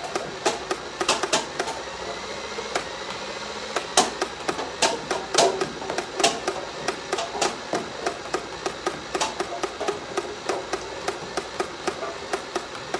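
Nerf Rival blaster firing foam balls in a steady series of sharp snaps, about two to three a second, with a few louder cracks about four to six seconds in.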